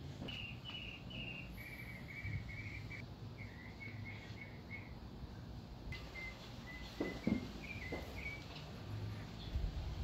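A small bird calling outdoors in a series of short, repeated chirps, about three a second, shifting slightly in pitch, with a couple of soft knocks about seven seconds in.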